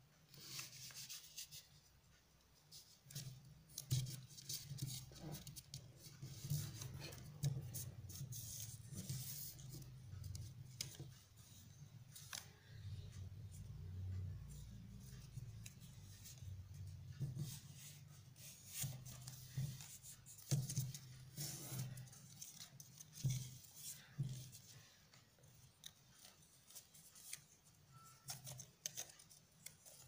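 A sheet of paper being folded and creased by hand on a wooden table, making irregular rustling and crinkling sounds.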